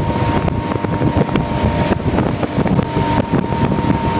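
Motorboat running at speed while towing a water skier, with wind buffeting the microphone and the wake rushing behind the boat.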